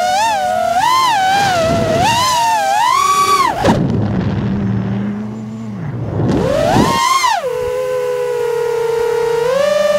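FPV freestyle drone's brushless motors and propellers whining, the pitch rising and falling with the throttle. Nearly four seconds in, the throttle drops to idle for a few seconds and only a low hum remains while the drone flips. It then punches back up with a quick rising whine and settles into a steadier, lower whine.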